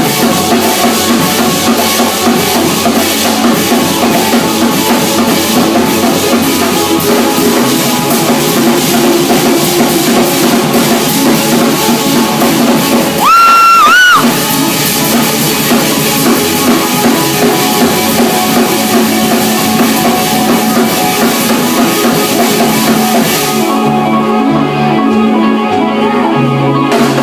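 Rock music with drum kit and guitar playing. About halfway through, a loud, high steady tone sounds for about a second over the music, bending upward slightly at its end.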